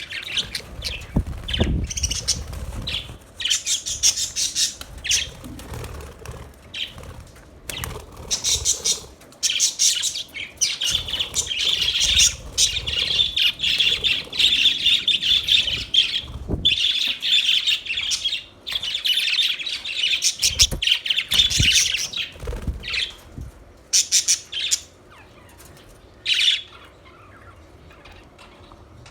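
Budgerigars chirping and warbling in a flock, fast overlapping chatter with squawks, busiest in the middle stretch and thinning out to a few calls near the end.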